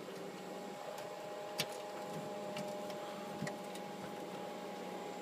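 Steady whirring hum of rack-mounted network switches' cooling fans, with a few faint clicks from cables and connectors being handled.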